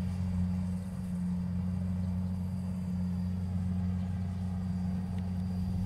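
Rice combine harvester engine running at a steady pitch, heard as a low, even drone.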